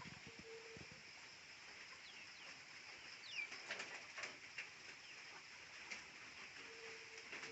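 Faint bird calls: a short low steady note near the start and again near the end, a few high falling chirps in the middle, and scattered light clicks.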